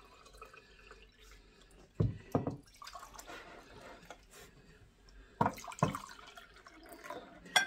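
Water poured from a plastic filter jug into a drinking glass, with dripping and trickling. A few sharp knocks stand out, a pair about two seconds in and another pair a few seconds later.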